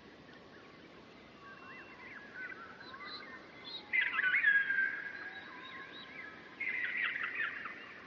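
Several songbirds chirping and singing, a mix of short whistled notes and gliding calls. A louder, busier burst of song starts suddenly about halfway through and again near the end.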